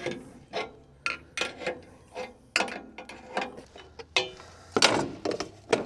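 Irregular light metallic clicks and clanks, about a dozen short knocks, some with a brief ring, from parts of a Woodland Mills wood chipper being handled.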